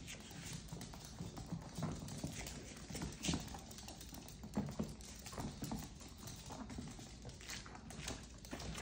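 Small dogs' claws clicking and tapping on a hardwood floor as they scamper and play-wrestle, in scattered, irregular taps.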